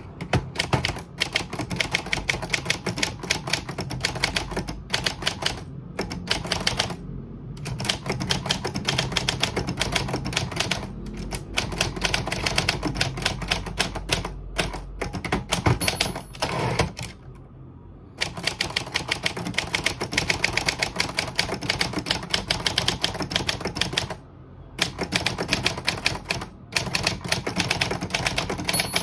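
Olympia Traveller manual portable typewriter being typed on: quick runs of key strikes with short pauses about 7, 17 and 24 seconds in. A short high ring sounds about sixteen seconds in and again at the end.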